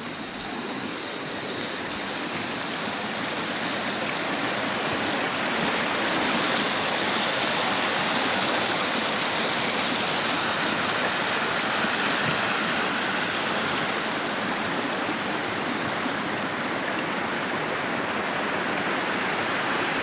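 Cold mountain stream rushing over rocks: a steady rush of water that grows a little louder in the middle.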